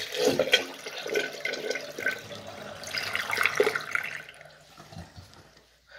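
Flush of a homemade miniature model toilet: water rushing and gurgling as it swirls down the small bowl into the drain, dying away near the end.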